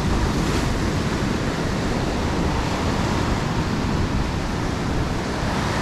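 Surf breaking and washing up a sandy beach in a steady hiss, with wind rumbling on the microphone underneath.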